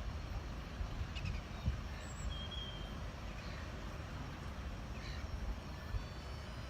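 Steady low rumble of wind on the microphone, with a few faint, short bird calls.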